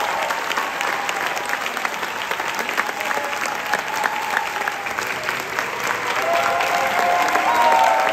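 Audience applauding after a live operatic aria with orchestra, with a few voices calling out above the clapping near the end.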